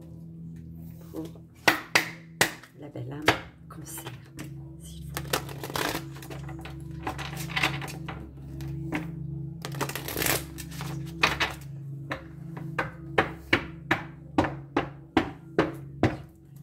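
Tarot cards shuffled and tapped down on a glass tabletop: sharp clicks with rustling in between, the clicks quickening to about three a second near the end, over steady background music.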